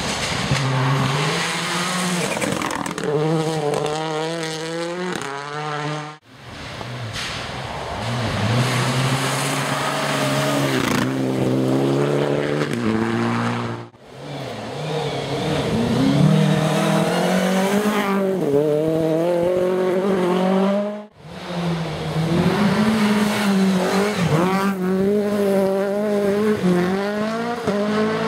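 Rally cars passing at speed, their engines revving hard, the pitch climbing and dropping back again and again through gear changes. It comes as four separate passes, each cut off abruptly.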